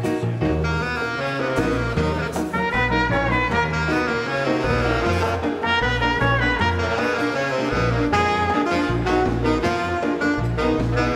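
Live dance orchestra playing an instrumental number in 1930s–40s style, with brass and saxophones carrying the tune over a steady bass line.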